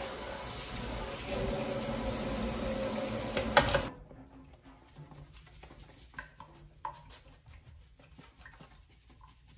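Kitchen tap running into a stainless steel sink while a dish brush scrubs a part under the water; the water noise cuts off suddenly about four seconds in. After that, only faint light taps and rubbing as baking soda is shaken from a cardboard box into the sink.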